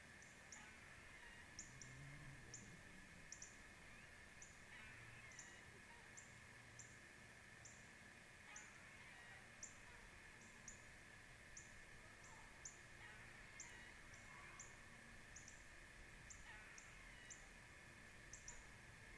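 Faint outdoor ambience: a steady high hum, with short high-pitched chips repeating about once or twice a second and a few faint distant bird calls.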